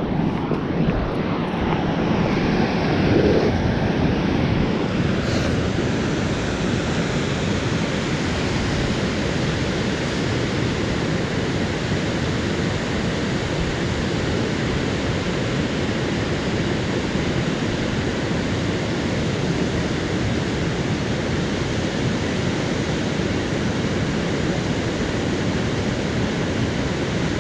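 Steady rush of water pouring over a river spillway, an even unbroken noise.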